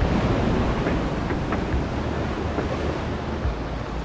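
Sea surf rushing steadily, with wind buffeting the microphone.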